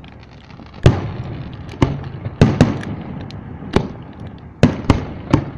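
Aerial fireworks bursting in the sky: about eight sharp bangs at uneven intervals, two of them in quick succession about two and a half seconds in.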